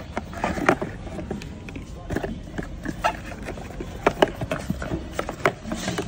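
Cardboard box, cable and paper insert being handled by hand: irregular taps, knocks and rustles, several a second.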